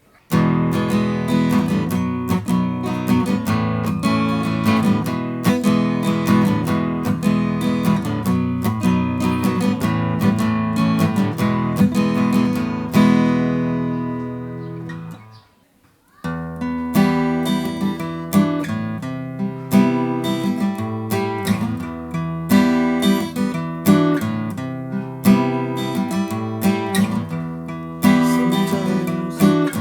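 Yamaha FG-720 acoustic guitar, with a spruce top and mahogany back and sides, being played. A first passage of notes and chords rings out and fades away about halfway through. After a short pause the playing starts again in a steady rhythm.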